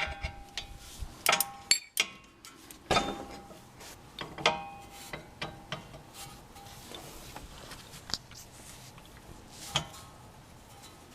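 Steel wrenches clinking and ringing against the rear brake caliper bolt as it is cracked loose. The clinks come singly and irregularly, most of them in the first five seconds and one more near the end.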